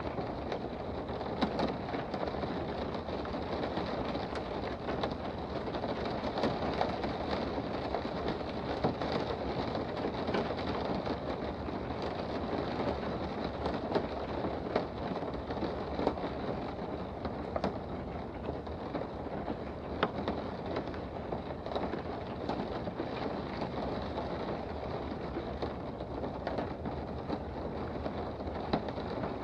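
Rain heard from indoors: a steady, even hiss of falling rain with scattered sharper taps of single drops.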